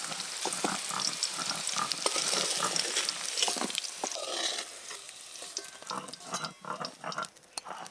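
Hot oil sizzling in a wok of frying potato, brinjal and taro pieces while a metal spatula scoops them out, clicking and scraping against the metal. The sizzling dies down about halfway through, leaving scattered clinks of the spatula and plate.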